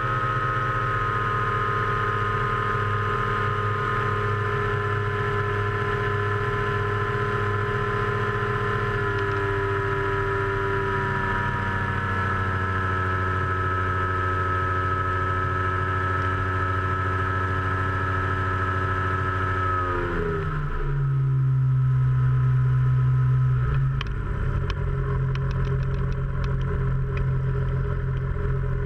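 Powered parachute's engine and propeller running steadily in flight, the pitch sagging slowly and then dropping sharply about twenty seconds in as the engine is throttled back, leaving a lower, steady hum for the descent.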